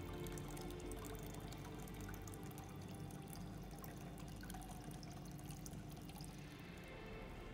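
Water trickling steadily down a small plastic-lined waterfall into a basin, with faint music fading out in the first second.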